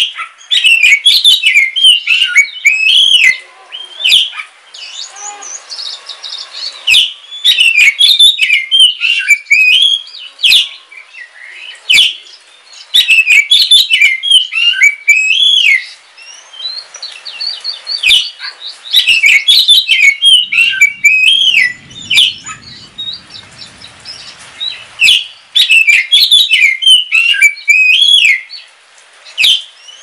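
Oriental magpie-robin of the black-bellied Bornean form (kacer wulung) singing. It gives bursts of rapid, varied whistled notes that slide up and down, each burst a few seconds long with short pauses between, and a few sharp clicks among them.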